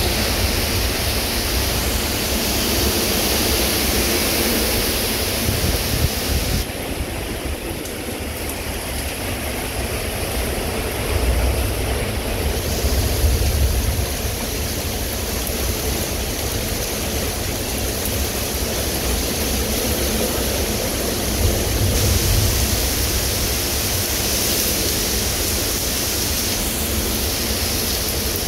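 Derecho winds and heavy rain: a loud, continuous rush of wind and rain with a deep rumble, swelling with the gusts about a third of the way in and again later.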